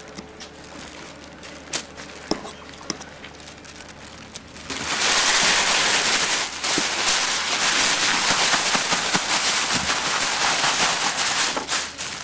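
Thin plastic shopping bag crinkling as hands work prawns into breadcrumbs inside it: a few light rustles at first, then loud continuous crackling of the bag from about five seconds in until shortly before the end.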